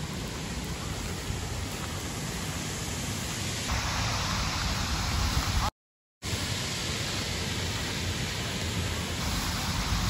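Steady outdoor rushing noise, like wind or flowing water, with no voices. It cuts out to silence for about half a second just before the midpoint, then resumes.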